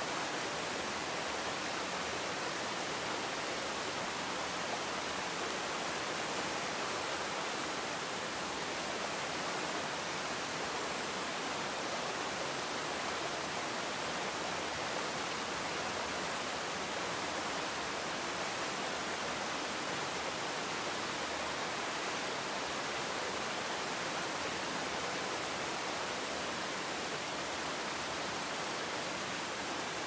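Waterfall rushing steadily, water pouring down a rock face and plunging into a pool.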